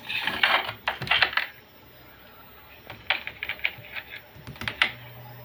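Handling clicks and taps of a handheld digital multimeter and its test probes being moved and set down on a bench beside a circuit board, in two clusters, in the first second and a half and again from about three seconds in.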